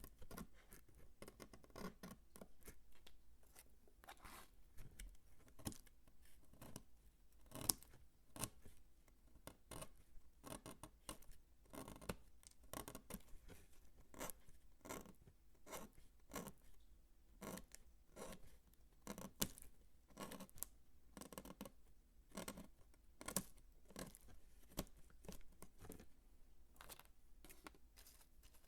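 Bar soap being cut and crunched by hand: an irregular run of crisp cuts, scrapes and crunches, several a second.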